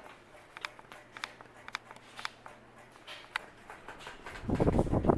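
Ceiling fan running on high with a faint steady hum and irregular light clicks. About four seconds in, a loud rustling, clattering noise starts.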